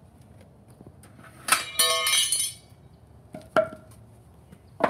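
Lumber being handled on concrete. About one and a half seconds in there is a loud, ringing, clinking clatter lasting about a second, then two sharp knocks of wood being set down, a little over a second apart.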